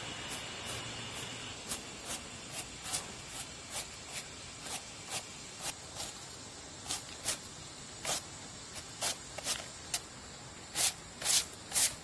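Broom swept across a concrete walk: short bristle swishes about twice a second, louder near the end as the strokes come closer.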